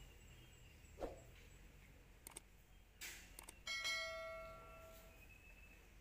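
A few faint clicks and a short knock, then a little under four seconds in a single bell-like metallic ring that starts suddenly and dies away over about a second and a half.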